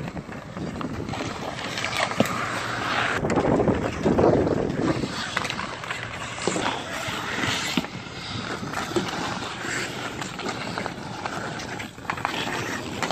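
Ice hockey play: skate blades scraping and carving on the ice, with the sharp clacks of sticks hitting the puck and each other scattered through.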